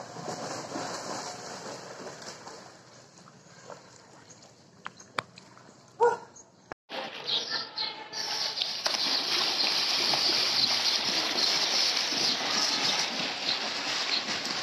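Swimmer's arm strokes and kicks splashing through pool water. After a brief break, louder continuous splashing comes from a snorkeler kicking with long fins close by. A brief, loud pitched sound stands out about six seconds in.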